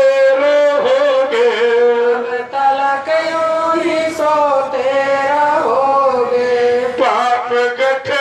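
Devotional bhajan singing: the line is drawn out in long, held notes that glide slowly up and down.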